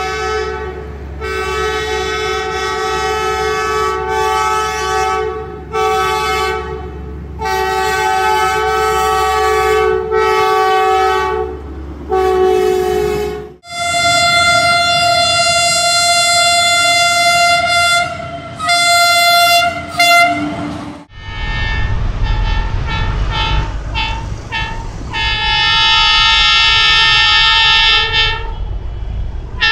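Vietnam Railways diesel locomotive air horns sounding a chord in a series of long blasts with short breaks. About halfway through, a different horn with a higher chord takes over, and near the end a third horn sounds over the low rumble of a train running on the rails.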